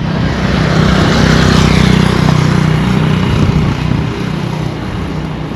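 A motor vehicle passing along the road. A steady engine hum with tyre and wind noise swells about a second in, then fades away.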